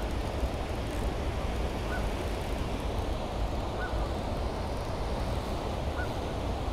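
Steady rush of water pouring over a lake spillway, with a faint short chirp about every two seconds.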